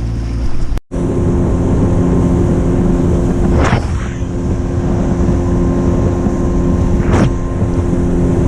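Boat motor running steadily under way, with wind buffeting the microphone. The sound cuts out for an instant a little under a second in, and two brief louder rushes of noise come through partway along.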